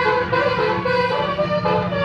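Bus 'telolet' musical air horn of the Basuri type playing a quick tune of short notes, with a steady low rumble beneath.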